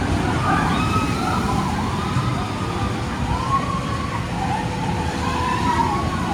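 Several people's raised voices calling out and whooping at once, in short rising and falling pitch glides, over a steady low rumble.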